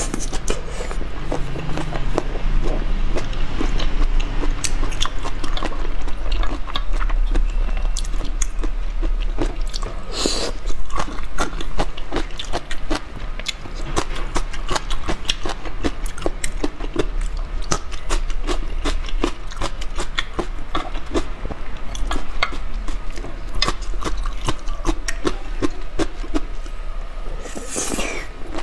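Close-miked chewing and biting of spicy shrimp on skewers, with many irregular crunchy clicks and wet mouth sounds. Louder, longer sucking or slurping noises come about ten seconds in and near the end.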